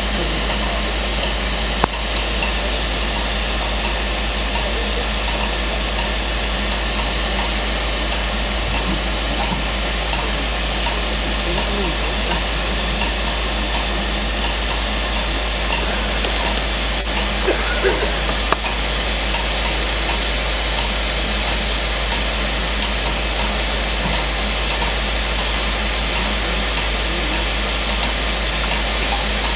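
LMS Black 5 steam locomotive hissing steadily with escaping steam as it is turned on a turntable. There are two brief sharp clicks, about two seconds in and again past the middle.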